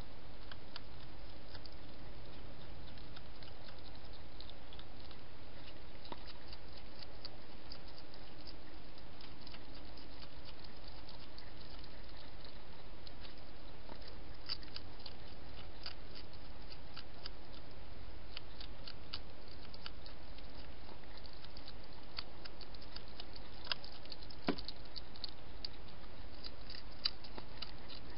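Wild European hedgehog crunching dry food: irregular small crisp clicks, in clusters that come thicker in the second half, over the trail camera's steady low hiss.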